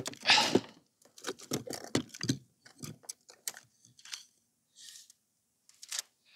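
Close-up handling noise: a short rustle, then a run of small irregular clicks and rattles that thin out toward the end, as fishing tackle is handled near the microphone.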